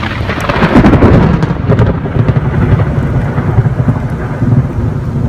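Rolling thunder from a severe thunderstorm, swelling to its loudest about a second in and then rumbling on steadily, with rain falling.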